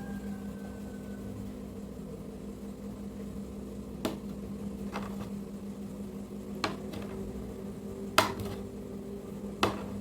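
Light knocks and clicks of kitchenware being handled, about five of them from about four seconds in, the loudest a little after eight seconds, over a steady low hum.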